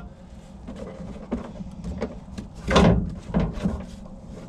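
A cooler tray on full-extension metal drawer slides being handled after being pulled out: a few light clicks and one louder knock about three seconds in.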